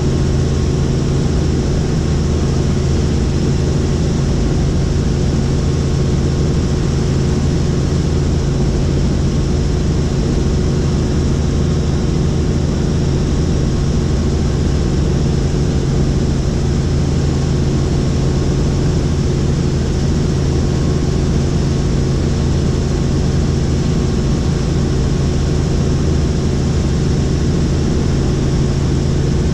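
Helicopter in flight: its rotors and engine make a loud, steady drone with several constant low tones.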